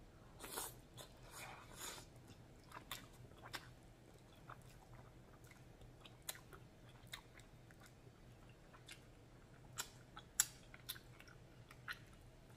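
A person eating noodles in black bean sauce: a longer slurp in the first two seconds, then chewing with many small, sharp wet mouth clicks scattered through the rest.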